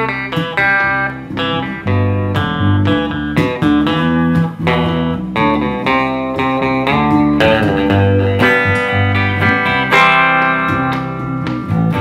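Live music led by an electric guitar playing plucked notes and chords.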